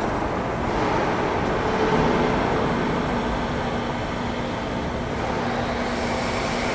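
Steady mechanical hum and noise of a factory workshop, with a low steady tone coming in about two seconds in.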